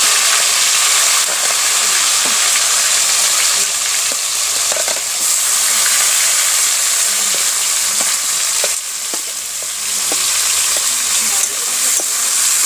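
Sliced onions sizzling steadily in hot oil in an iron kadai, stirred with a spatula that clicks and scrapes against the pan now and then.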